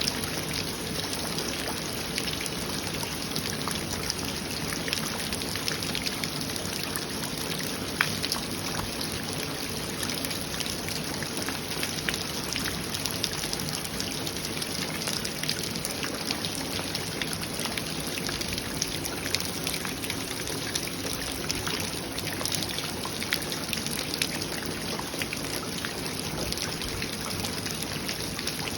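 Heavy rain pouring down steadily, with a dense patter of drops and trickling water, and one sharper drop tap about eight seconds in.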